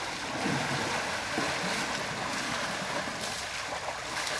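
Water splashing and surging in a shallow river as an elephant heaves itself up from lying on its side and stands, with the river's flow running steadily underneath.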